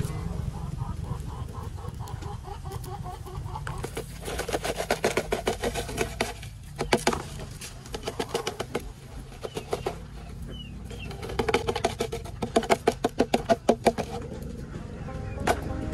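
Chickens clucking in several rapid runs of short calls.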